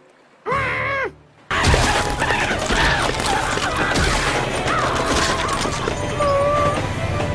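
Cartoon sound effects: a short wailing cry, then from about a second and a half in a sudden loud, dense rumbling noise of a character being dragged along by a train, with rising and falling cries over it.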